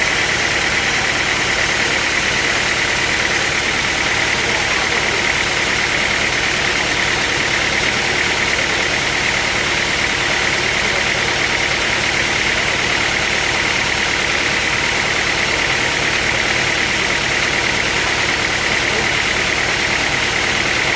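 Sawmill machinery running steadily, an engine-driven drone with a constant high whine and no breaks.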